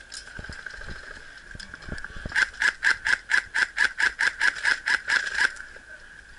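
A rapid, even run of sharp mechanical clicks, about four or five a second, starting about two seconds in and stopping after about three seconds, over a steady high whine.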